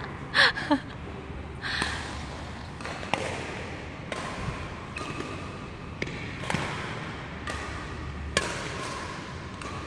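Badminton rally: a shuttlecock struck back and forth with rackets, giving short, sharp hits about once a second.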